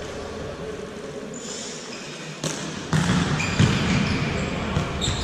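Futsal balls being kicked and bouncing on a hardwood court, giving several sharp knocks, mixed with short high squeaks of shoes on the floor.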